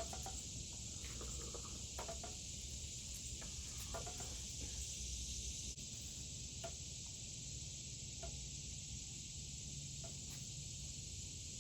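Insects droning, a steady high even hiss, with a few faint clicks and rustles over a low rumble.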